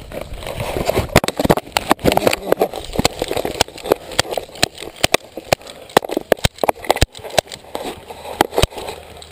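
Airsoft guns fired in single shots: a series of sharp cracks, a few a second at uneven spacing, starting about a second in, over rustling of gear and dry grass.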